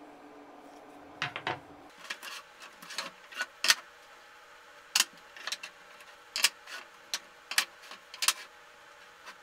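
Laminated plywood pieces knocking and clacking against each other and against a wooden workbench as they are handled and set down, a series of irregular sharp knocks, the loudest a little under four seconds in.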